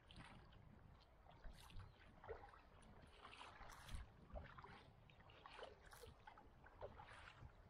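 Faint water splashing and trickling from a kayak being paddled, in small irregular splashes.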